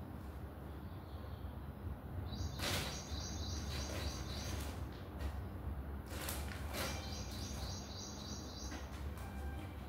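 Thin plastic bag crinkling and rustling as kittens scramble in and around it, with a few sharper crackles. In the background, bouts of rapid high chirping, about four a second, over a steady low hum.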